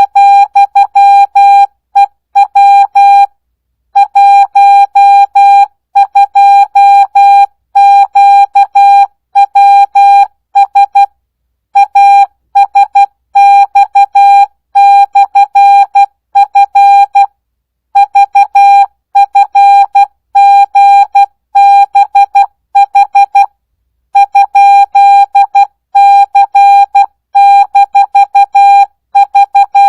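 Morse code practice tone: a single-pitched beep keyed on and off in dots and dashes at 12 words per minute, without Farnsworth spacing, so the letters come at full speed. The elements run in quick groups with short gaps between letters and a few longer pauses between words.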